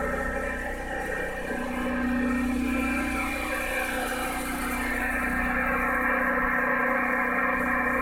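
A small engine running steadily, a constant hum of several fixed tones that grows a little louder about a second and a half in.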